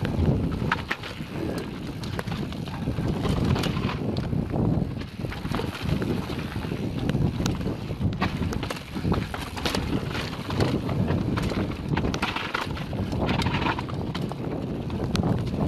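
Mountain bike riding over rocky dirt singletrack: wind buffets the on-bike camera microphone over tyre noise on dirt and rock, with frequent sharp clicks and knocks as the bike rattles over the rocks.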